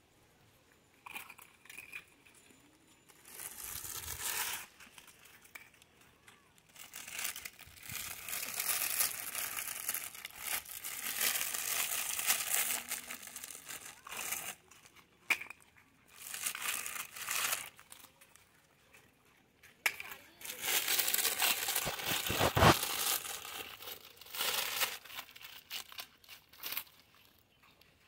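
Plastic biscuit packet crinkling in several irregular bursts of rustling as it is handled, with quiet gaps between. A single sharp knock, the loudest moment, comes about three-quarters of the way through.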